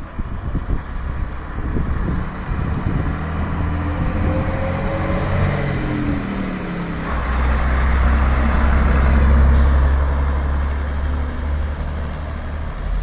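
AEC Regent III RT double-decker bus's diesel engine pulling along the road, its note rising, then a loud low rumble from about seven seconds in as it passes close by.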